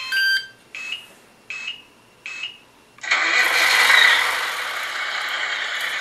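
Tamiya MFC sound unit powering up through its small loose speaker: a quick chirp of tones, then three short beeps, then about three seconds in the simulated truck engine starts and keeps running.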